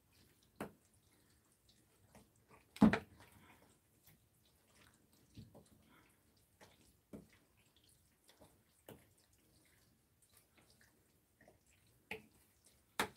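Kimchi pancake batter being stirred in a glass mixing bowl: scattered faint wet squelches and clicks of the utensil against the bowl, about seven in all, the loudest about three seconds in.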